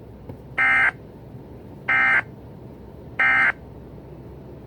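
Electronic alarm buzzer sound effect: three short, identical buzzes a little over a second apart.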